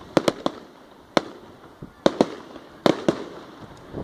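Aerial fireworks bursting: about eight sharp bangs at irregular intervals, several coming in quick pairs.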